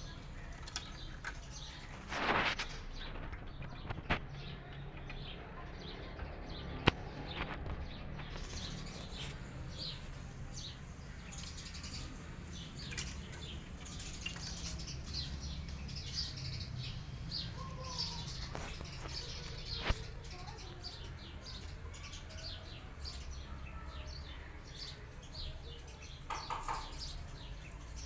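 Small birds chirping again and again, short high calls, over a steady low background hum. A few sharp clicks and two brief louder noises, one about two seconds in and one near the end, stand out.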